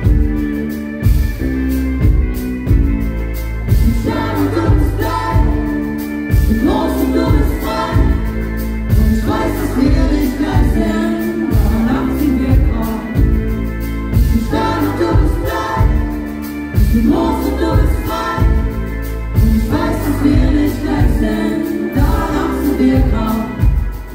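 Live band music with drum kit and bass keeping a steady pulse, and a woman singing lead in phrases that come in about four seconds in.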